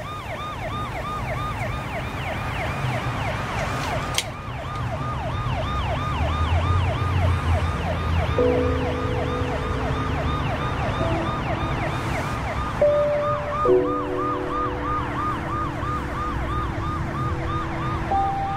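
Ambulance siren sounding a fast, repeating yelp, about four sweeps a second, over a low road rumble.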